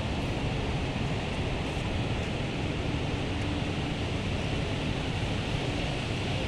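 Ocean surf breaking and washing ashore: a steady rushing noise, with a low rumble of wind on the microphone.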